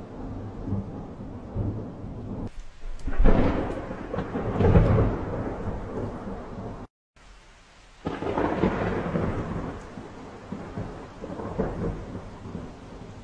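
Thunderstorm: deep rolling thunder over a steady hiss of rain, with louder rolls about three seconds in, near five seconds and around eight and a half seconds. The sound cuts out abruptly for about a second near the middle.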